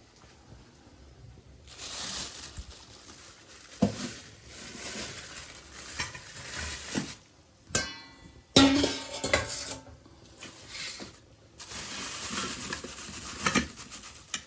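A utensil stirring and scraping food in a pan, in several stretches, with a few sharp knocks against the pan. The loudest knock comes a little past halfway, just after a short squeaky scrape.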